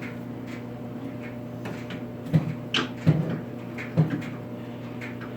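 A handful of dull knocks and clunks, about four in a row between two and four seconds in, as hard objects are handled or set down, over a steady low hum.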